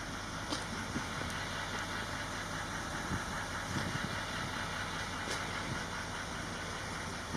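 A motor vehicle engine idling steadily, with a few faint clicks.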